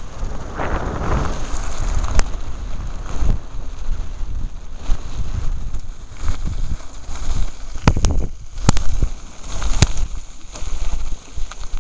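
Wind buffeting the microphone and the rumble of a mountain bike rolling fast over a gravel track, with a few sharp clicks and knocks from the bike and stones, clustered around the latter part.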